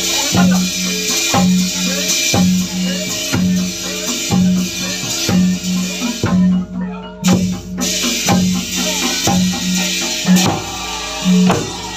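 Dongkrek percussion music playing: a low pitched beat repeating in a steady rhythm, under sharp struck accents. It breaks off near the end.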